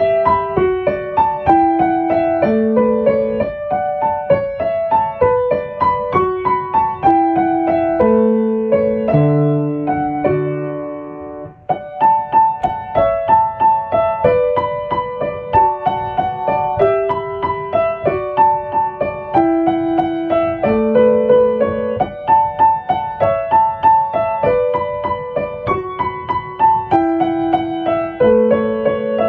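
Solo piano music, a gentle melody of single notes over simple chords. About eleven seconds in, the phrase ends on a held chord that fades away, and the tune then starts again.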